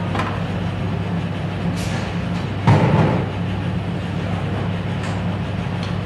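Assembly shop atmosphere: machinery running with a steady low hum. A louder clunk comes about two and a half seconds in, with a few lighter clicks around it.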